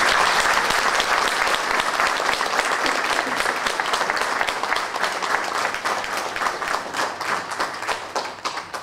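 Audience applauding, loudest at first and slowly thinning out, dying away near the end.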